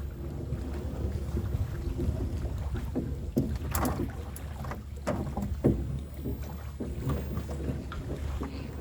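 Knocks and thuds of gear being handled in a small fishing boat, several sharper ones in the middle, over a steady low rumble.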